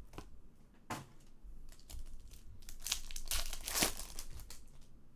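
Wrapper of a 2019 Bowman Chrome baseball card pack crinkling and tearing open, with a sharp click about a second in and the loudest tearing between about three and four seconds in.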